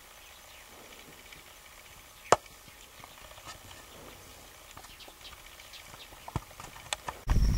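Quiet outdoor background with scattered sharp clicks, one much louder about two seconds in and a quick cluster near the end. Just before the end the sound jumps suddenly to a loud low rumble.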